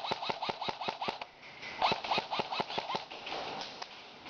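Airsoft gun firing two quick strings of shots, about seven a second, with a short gap between them.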